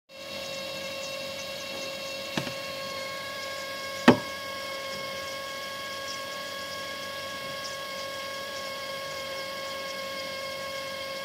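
Siemens KG49 fridge-freezer giving off the strange noise it is being recorded for: a steady, pitched whining hum with many overtones. Two sharp clicks break in, the second, louder one about four seconds in.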